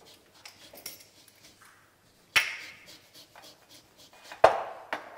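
Lemon being zested on a Microplane rasp over a stainless steel bowl: faint scraping, with two sharp knocks that ring on, about two and a half and four and a half seconds in, the second the louder.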